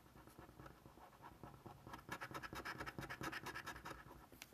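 A coin scratching the coating off a scratch-off lottery ticket in quick back-and-forth strokes. It is light at first and gets louder and denser about halfway through.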